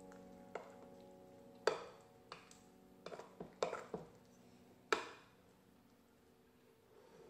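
A spoon stirring thick batter with diced apple in a glass mixing bowl: a handful of soft knocks and scrapes of the spoon against the glass, with wet squelches of the batter. The last piano notes die away in the first few seconds.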